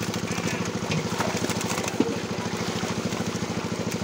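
A small engine running steadily with a fast, even throb, with splashes from fish thrashing in a crowded net.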